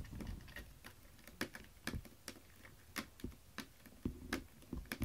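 A cat's claws scratching and catching on a carpet-covered scratching mat as it stretches, giving irregular sharp clicks and scratches.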